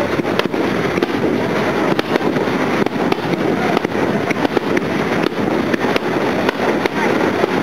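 Fireworks display going off in a dense, continuous barrage, with many sharp cracks over a steady crackling din.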